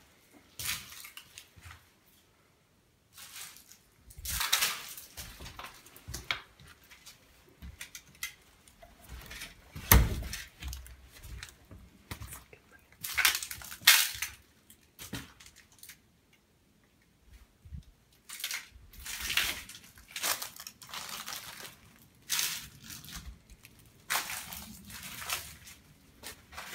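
Footsteps crunching over fallen plaster and rubble on a corridor floor, in irregular bursts with pauses, with a sharp knock about ten seconds in.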